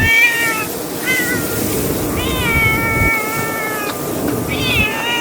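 Stray kittens meowing repeatedly in high-pitched, drawn-out cries, one long call about two seconds in and another starting near the end, with strong wind buffeting the microphone.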